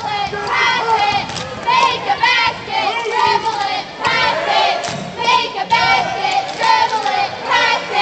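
Spectators in a basketball gym shouting and cheering, many high voices overlapping without a break.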